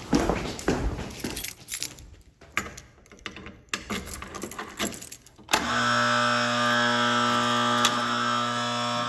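Rattling and clicking for about five seconds. Then an AC fire alarm horn, a Honeywell-badged 4030 from an early-1960s system, comes on with a steady, buzzy tone and sounds without a break.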